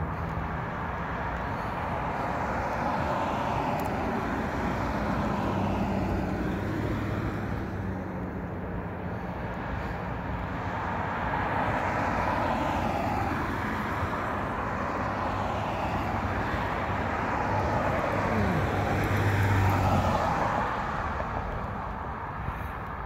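Road traffic: cars passing close by one after another, their tyre and engine noise swelling and fading several times. The loudest pass comes near the end, its engine note falling in pitch as it goes by.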